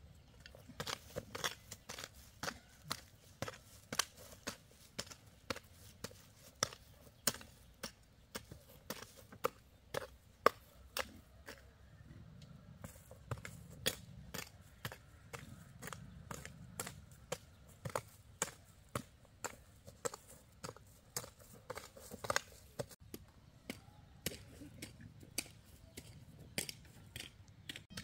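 Short-handled hoes chopping into the soil between young corn plants while weeding: a run of sharp strikes, about two a second.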